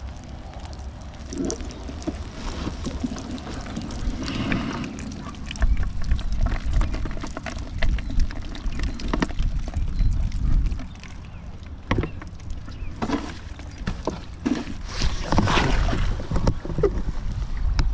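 Wind buffeting the microphone over river water sloshing and pouring, with scattered knocks and clicks.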